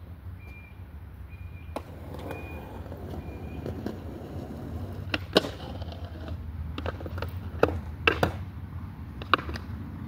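Skateboard wheels rolling on a hard surface, the rumble building after about two seconds, with several sharp wooden clacks of the board popping and landing, the loudest about halfway through and again near the end.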